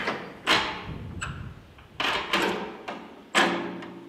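Three sharp clunks about a second and a half apart, each fading away over about half a second, from hands-on work at an old gasoline tractor.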